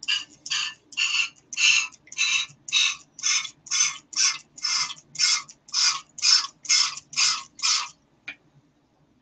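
Rhythmic scrubbing strokes, about two a second, each a short scratchy rasp, stopping about a second before the end.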